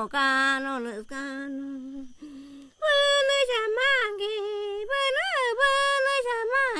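A woman singing a slow, unaccompanied chant in a high voice, with sliding, wavering notes. The voice breaks off briefly about a second in, then from about three seconds in it goes on louder and higher.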